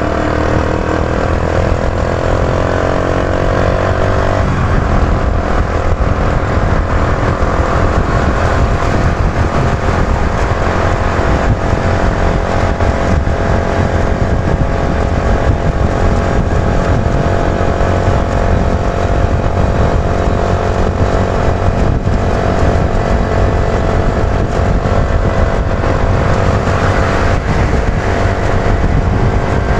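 Yamaha YB125Z DX's single-cylinder 125 cc four-stroke engine pulling under acceleration while riding, its pitch rising for about four seconds, dropping at a gear change, then holding steady at speed, with steady wind rush.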